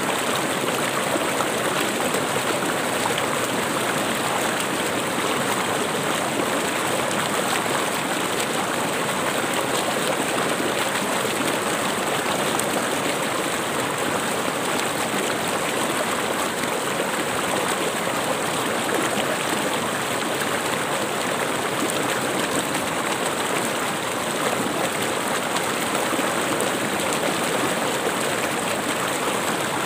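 Shallow rocky river rushing over stones in small rapids close by: a steady, unbroken rush of water.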